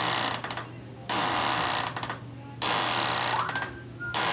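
Atlas Orthogonal chiropractic adjusting instrument buzzing in repeated bursts about a second long with short gaps, its vibrating stylus delivering an adjustment to the atlas vertebra.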